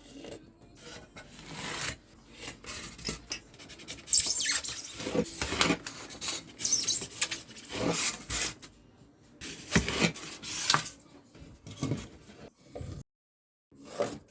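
Irregular rubbing and rasping strokes of hand work on polystyrene foam, a string of uneven scrapes about half a second to a second each.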